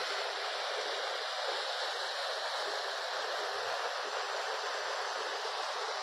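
Tall, thin waterfall showering onto rock, a steady, even rush of falling water heard close up.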